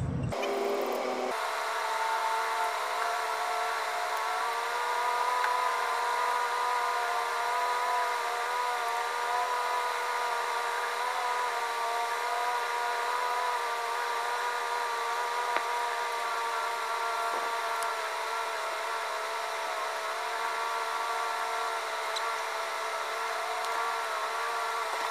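A steady machine drone, like a motor running without change, with several held tones that waver slightly in pitch.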